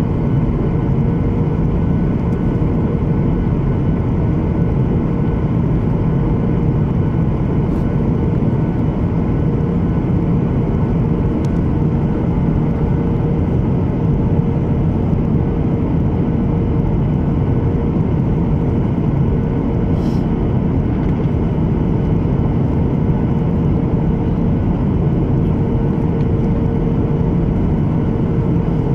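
Cabin noise of a Boeing 737-800 on approach, heard from a window seat over the wing: its CFM56-7B turbofans and the airflow make a steady roar, with a steady droning tone running through it.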